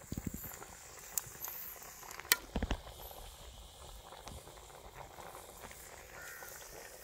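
A few dull knocks and sharp clicks of things being handled, the loudest a little over two seconds in, over a faint steady background.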